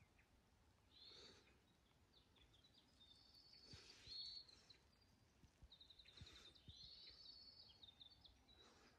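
Faint songbirds singing in the dawn woods: short high songs with down-slurred notes and rapid trills, repeated every second or two.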